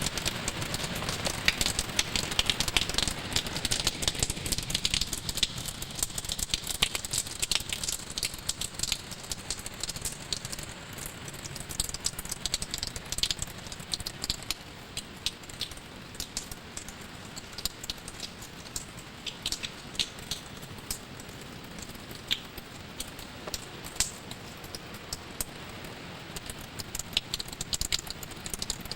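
Rain falling, with a dense run of irregular ticks of drops striking a hard surface, a little heavier in the first few seconds.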